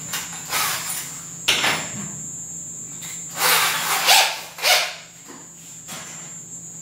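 Hand handling of a power drill and bit: clicks and short rasping scrapes as a bit is fitted into the drill's chuck and the chuck is turned by hand. The drill motor is not running. There is a sharp click about a second and a half in, and the loudest run of scrapes comes a little past the middle.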